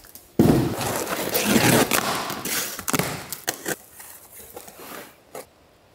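Cardboard shipping box being opened by hand. It starts suddenly about half a second in as the flaps are pulled open, then dense rustling and crinkling of cardboard and contents for a couple of seconds, thinning to a few scattered taps and rustles.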